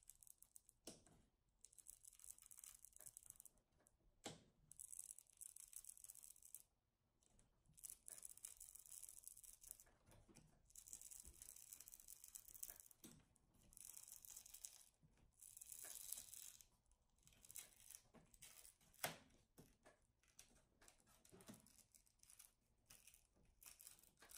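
Small screwdriver prying a plastic side panel off the metal backing plate of an Apple Cinema Display, its strong adhesive peeling away: faint scratchy scraping in short stretches, with a few sharp clicks.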